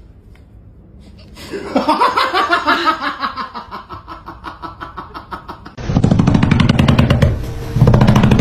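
A person laughing in fits of quick, rapid pulses, getting louder about six seconds in.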